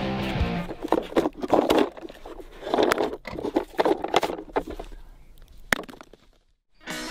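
Hands fixing firework rockets to a hollow plastic toy car: irregular bursts of rubbing and crinkling of tape and plastic, with a few sharp clicks.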